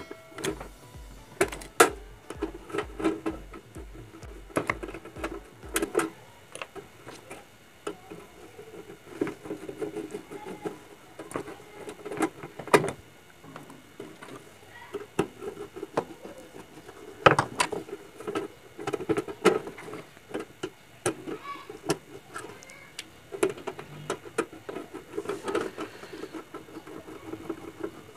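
Screwdriver working the screws out of a gas compressor's sheet-metal casing, with scattered sharp clicks and knocks as the metal box is handled and shifted on the workbench.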